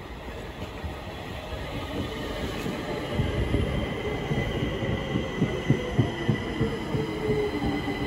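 Stockholm metro train pulling into the station. Its whine falls steadily in pitch over a thin high squeal, and the clatter of wheels over rail joints grows louder from about three seconds in as the cars pass close by.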